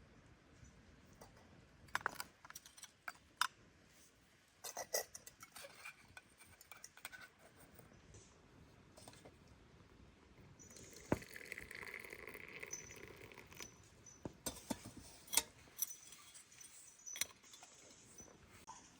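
Scattered light clicks, taps and clinks, some in quick clusters, with a longer scraping rustle from about eleven to fourteen seconds in.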